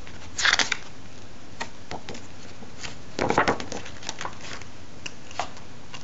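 Paper and plastic inserts from a Blu-ray collector's set being handled: short bursts of rustling and crinkling, the loudest about half a second in and about three seconds in, with light taps and clicks between.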